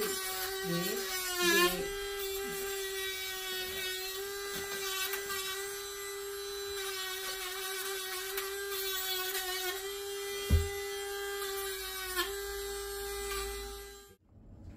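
Electric rotary dog-nail grinder running with a steady whine as it files a dog's claws, its pitch wavering briefly in the first couple of seconds. A single knock comes about ten seconds in, and the grinder switches off near the end.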